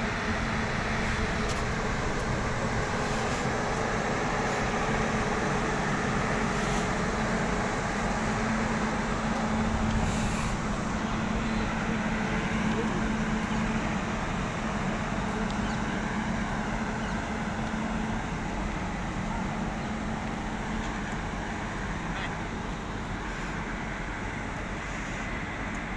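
WAG-9HC electric locomotive standing with its pantograph raised, its onboard auxiliary machinery running: a steady mechanical hum with a droning tone that eases somewhat after about the middle.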